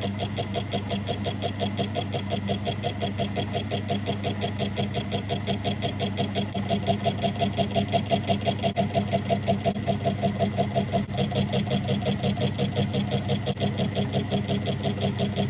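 South Bend lathe running while slotting small screw heads: a steady motor hum under a fast, even rhythmic pulse.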